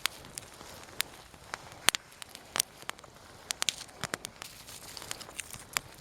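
Small campfire of dry deadwood twigs crackling, with irregular sharp pops over a steady hiss as it catches.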